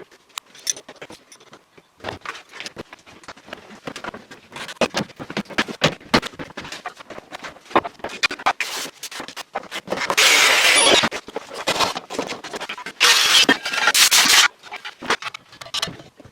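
Workshop work noises: a dense run of clicks, taps and clatter from hand tools and parts being handled, with two loud bursts of hissing noise, one about two-thirds of the way through and another shortly after.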